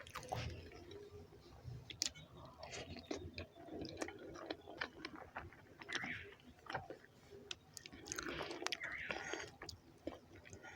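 Close-up chewing of rice and beans: soft wet mouth sounds and small clicks and smacks, with louder bursts of chewing about six seconds in and again about eight to nine seconds in.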